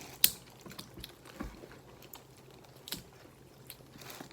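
Irregular sharp clicks and cracks of Dungeness crab shell being broken open and picked apart by hand while eating, the loudest about a quarter second in.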